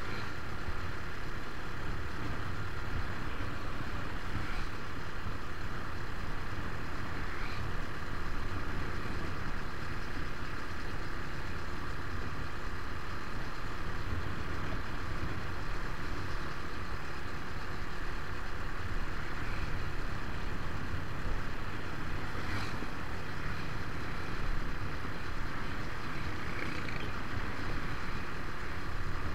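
Steady road-traffic noise: motor-vehicle engines running continuously, without a break.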